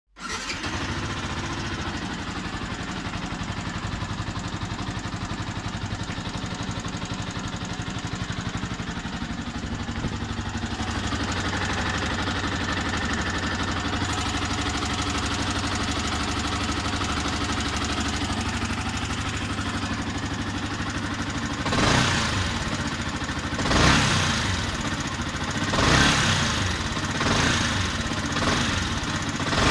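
Yamaha YZF-R125 single-cylinder four-stroke engine idling with a ticking, tapping noise, then revved in short throttle blips every second or two over the last eight seconds or so. The owner wonders whether the tick comes from the camshaft.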